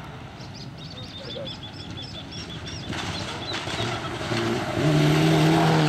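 All-wheel-drive rally car approaching on a gravel stage, its engine growing steadily louder and holding a steady note over the last second. Before it arrives, a bird chirps rapidly, about five chirps a second.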